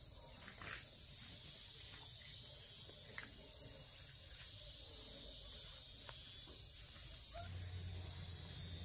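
Steady high-pitched drone of insects, with a few faint clicks and rustles. A low hum comes in near the end.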